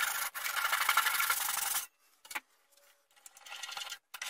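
Handsaw blade rasping against the wooden waste block of a chestnut plate turning on a lathe, parting the plate off; the sawing stops suddenly about two seconds in. Faint rubbing and a light knock follow near the end.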